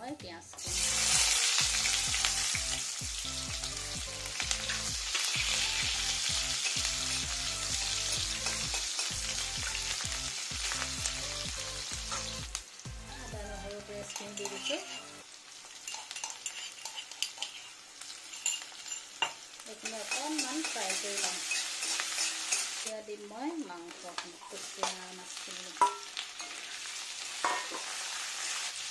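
Sliced onions hitting hot oil in a stainless steel kadai: a loud sizzle starts about a second in and settles, about halfway through, into a quieter steady frying sizzle. Scattered clinks and scrapes of a spatula against the steel pan as the onions are stirred.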